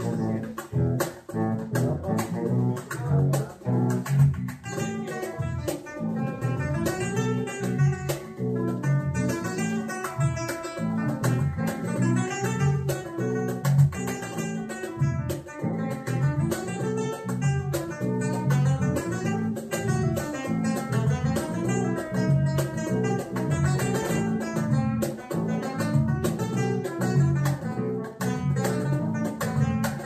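Background music: jazz-flamenco with plucked acoustic guitar over a steady bass line.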